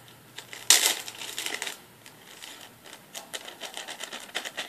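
Small plastic container of slime pigment being handled and opened: a sharp clack about a second in, a short crackle of clicks, then scattered small clicks and taps.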